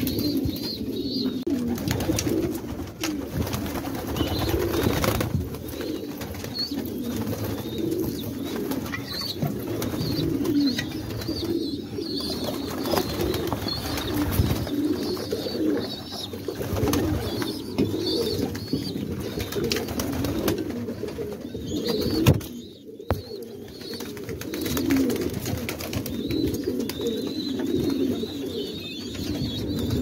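A flock of domestic pigeons cooing continuously, many birds at once, with scattered high chirps over the top. A single sharp knock comes about two-thirds of the way through.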